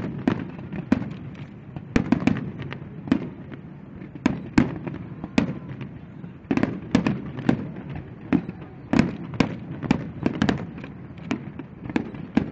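Fireworks display: a rapid run of firework shells bursting, several sharp bangs a second, with a rumbling echo rolling on between them.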